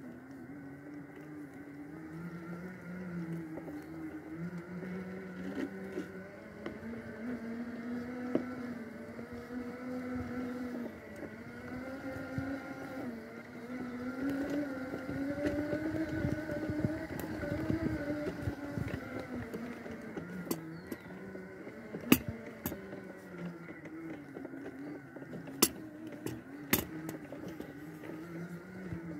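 Electric drive motors of an Extreme X8 power wheelchair whining as it drives along a dirt forest path, the pitch rising and falling as it speeds up and slows down. A few sharp knocks come near the end.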